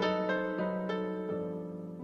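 Gentle instrumental background music: a slow line of single notes, each ringing out and fading, growing softer toward the end.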